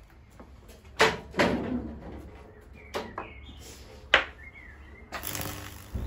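Several sharp snaps, then about five seconds in a steady sizzling hiss with a low hum: high voltage from a microwave-oven transformer arcing and burning through electrolyte-soaked wood to form Lichtenberg figures.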